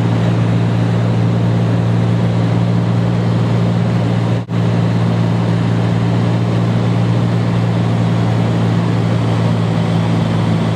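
Cessna 210 Centurion's piston engine and propeller droning steadily, heard from inside the cabin. The sound cuts out for a split second about halfway through, then resumes unchanged.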